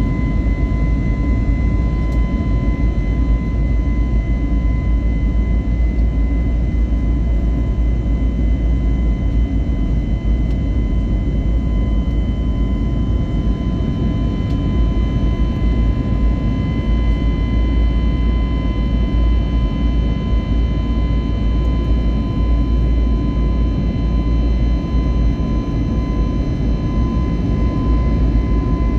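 Cabin noise of an Airbus A321neo climbing after takeoff, heard from a window seat by the wing: its CFM LEAP-1A turbofans running at climb power as a steady low rumble, with a steady high whine over it.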